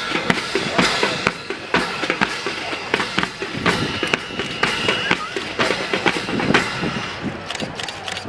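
Marching drum corps playing snare and bass drums: a run of sharp strikes in rhythm, with a held high tone for a second or so in the middle. The strikes thin out near the end.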